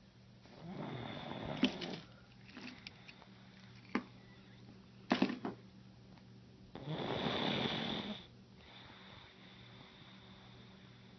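Snoring: two long, drawn-out snores, one about a second in and another at about seven seconds, with a few short sharp clicks in between.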